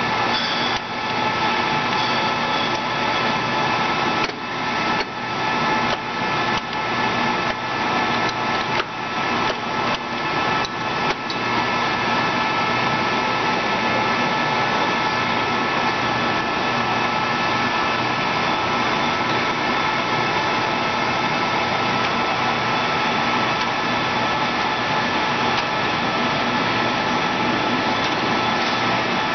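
Acer 24160G engine lathe running: a steady mechanical whir from its geared drive, with several steady gear-whine tones, broken by short dips and clicks over the first ten seconds or so, then even.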